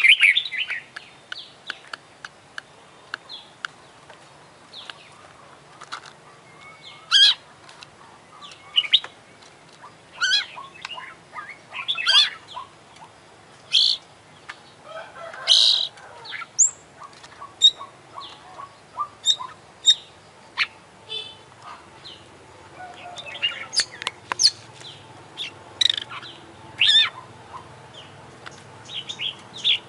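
Oriental magpie-robin (kacer) singing a varied song of short, loud phrases: sharp chirps, whistles and squeaky notes with brief pauses between them, and a quick rattle about two thirds of the way through.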